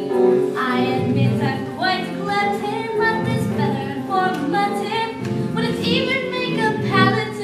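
Children singing a musical-theatre song with instrumental accompaniment.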